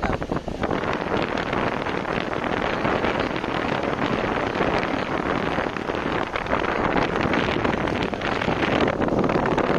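Pooja high-speed wall fan running, its airflow buffeting the microphone as a steady rushing noise.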